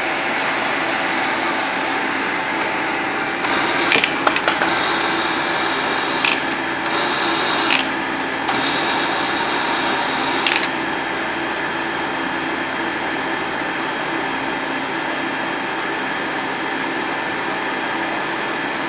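Toolmex TUR603A manual lathe running steadily, a machine hum with several steady tones. Several short bursts of a harsher, brighter rattle come in the first half.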